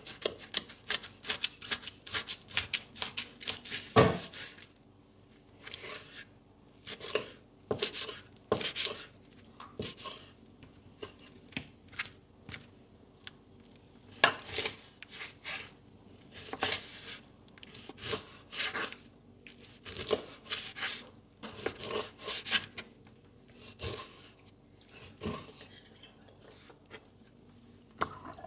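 Knife slicing beef tongue on a plastic cutting board. Quick sawing strokes come in the first few seconds, then a sharp knock of the blade on the board about four seconds in, then separate cuts about once a second.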